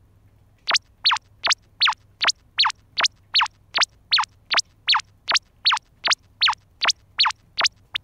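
Cartoon-style sound effect: a short falling chirp, the same each time, repeated evenly about two and a half times a second, some twenty times, starting under a second in.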